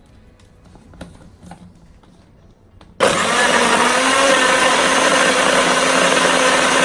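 A few faint clicks, then about three seconds in a motor switches on, spins up and runs loudly and steadily until it cuts off abruptly.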